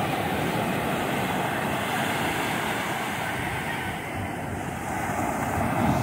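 Ocean surf breaking and washing up the beach in a steady rush, with wind rumbling on the microphone.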